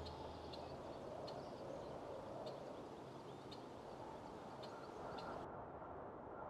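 Faint background ambience with sparse, short high chirps roughly every half second to a second, which stop a little over five seconds in. The low ring of a deep hit dies away in the first second.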